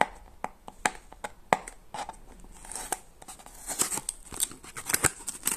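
A small cardboard box being opened by hand: scattered sharp clicks and scrapes as the flaps are pulled and torn apart, then a denser run of crinkling from the plastic wrapping inside from about three and a half seconds in.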